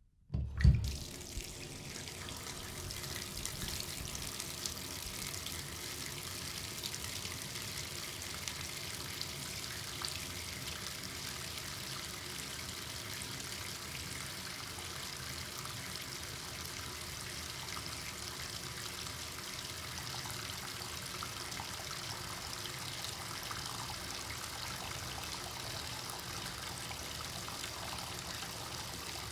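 Bathtub faucet turned on, with a brief low thump under a second in as the water starts, then water running steadily from the tap.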